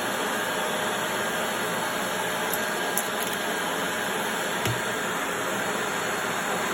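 Household vacuum cleaner running steadily, with a couple of light clicks midway and a soft knock a little later.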